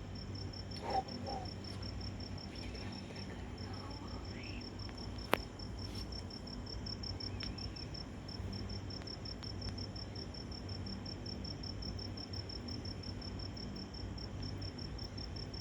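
Cricket chirping in a steady, fast pulse, about five or six chirps a second, pausing briefly twice, over a low steady hum. A single sharp click comes about five seconds in. No thunder is heard despite the lightning.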